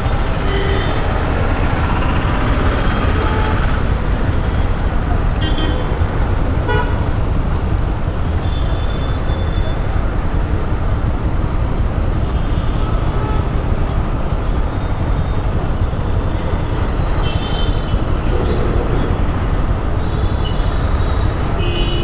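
Steady, loud city traffic rumble at a road junction, with several short vehicle horn toots spread through.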